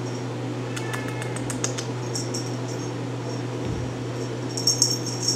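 Steady low room hum with a few soft clicks and ticks, and a faint, short chirp from a RagaMuffin kitten about a second in.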